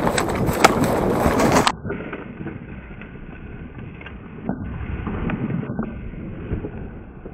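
Running footsteps crunching and rustling through dry grass, with wind on the microphone. Just under two seconds in the sound abruptly turns duller and muffled, with rustling and irregular thumps as a wounded western capercaillie flaps heavily to take off.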